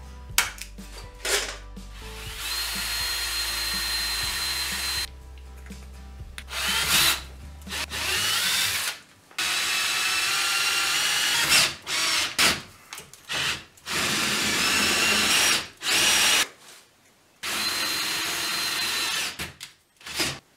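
Power drill boring through a black iron pipe cap, stepping up in bit size, in about six runs of a few seconds each with a steady whine and short pauses between them. A few sharp taps of a center punch near the start.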